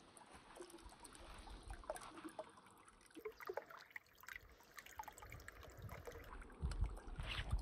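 Small mountain stream trickling over granite rocks: faint, with scattered little plinks and gurgles. A low rumble comes in near the end.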